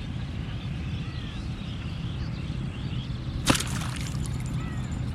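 One sharp swish of a fishing rod whipping through the air on a cast, about three and a half seconds in. It plays over a steady low rumble, with faint chirps and a few light ticks after it.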